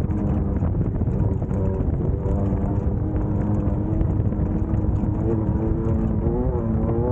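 Class 1600 off-road race car's air-cooled 1600 cc Volkswagen engine running hard, its pitch wavering up and down as the revs change, over a heavy low rumble.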